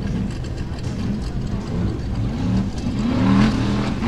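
Formula Offroad buggy's engine running and revving in short rising bursts, the revs climbing several times in the second half and loudest a little before the end.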